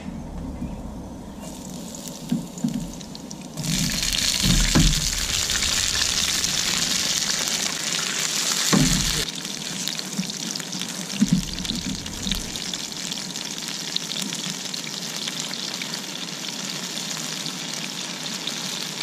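Food frying in hot oil in a pan. The sizzle jumps up sharply about three and a half seconds in, then settles into a steadier, softer hiss after about nine seconds, with a few knocks of the pan or utensils.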